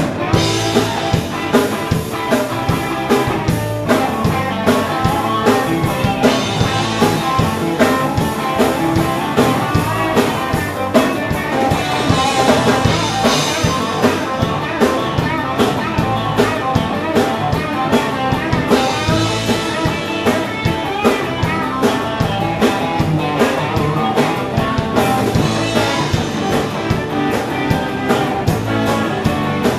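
Live rock band playing: electric guitars over a drum kit keeping a steady beat, loud and full.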